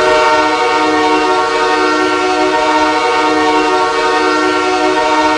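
Ice-hockey goal horn sounding one long, steady blast, several tones at once.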